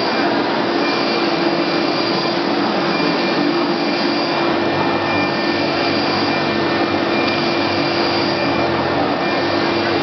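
A 4060 UV flatbed printer running: a steady machine whir with a constant low hum, and a faint high whine that comes and goes every couple of seconds.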